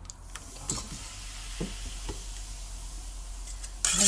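Baking soda fizzing as vinegar is poured onto it in a teaspoon: a hiss with a few light clinks of the spoon. Near the end, a sudden louder scraping and clinking as the spoon stirs it into kefir in a stainless steel bowl.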